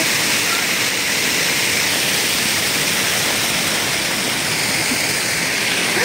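Arching jets of a walk-through fountain tunnel spraying and splashing down close around: a loud, steady hiss of falling water.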